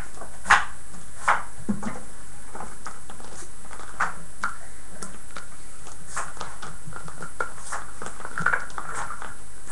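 Puppies nosing and pushing a plastic bottle on a carpeted floor: a few sharp plastic clacks and scratchy crinkles, over a steady hiss.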